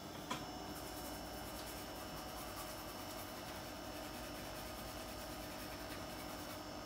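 Steady hum of a small electric bench drive motor spinning the mechanical speedometer of a Mercedes SL450 instrument cluster, with one short click about a third of a second in.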